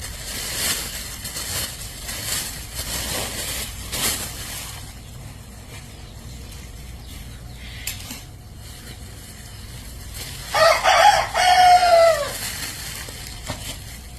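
A rooster crowing once, about ten seconds in: one long call that holds and then falls in pitch at the end. Before it, a few seconds of rustling or scraping.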